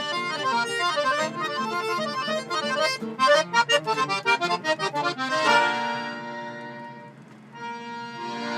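Accordion playing chamamé: quick runs of notes, then about five and a half seconds in a long held chord that fades away, followed by another held chord near the end.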